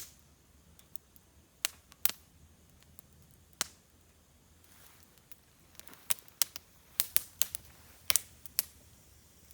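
Sharp, irregular clicks and ticks of small hard objects: a few scattered ones, then a quick run of them in the second half.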